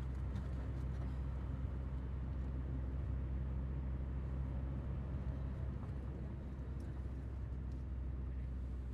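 A steady low mechanical hum with a rumble underneath, unchanging throughout.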